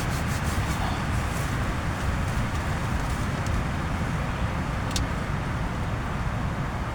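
Steady heavy rain with strong wind, a low rumble of wind under an even hiss, with a few light ticks of drops; one sharper tick about five seconds in.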